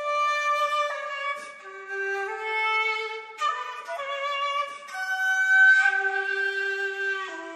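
Live orchestral music: several held notes overlapping in changing chords, the pitches moving every second or so, swelling loudest a little past the middle.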